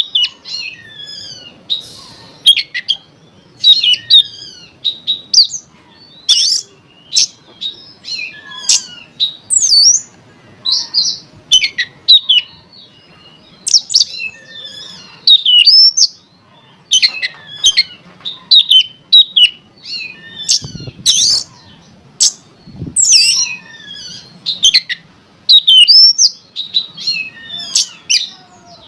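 Oriental magpie-robin (kacer) singing: loud, rapid phrases of varied whistles, sweeping notes and sharp chirps with short pauses between them. This is the agitated lure song used to provoke a caged kacer into singing.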